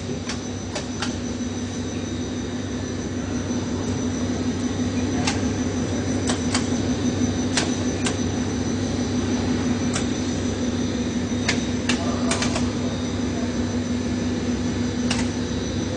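Steady hum of a running two-layer cast stretch film extrusion line, with a strong low droning tone and about a dozen sharp clicks scattered at irregular intervals.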